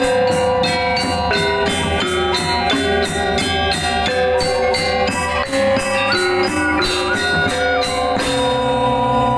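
Balinese gamelan music: bronze metallophones and gongs struck in quick even strokes, about four a second, under ringing pitched tones. About eight seconds in, the strokes stop and long held tones remain.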